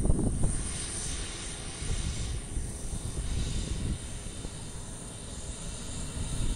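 Embraer KC-390's twin turbofan jet engines running, a steady rumble with a thin high whine above it.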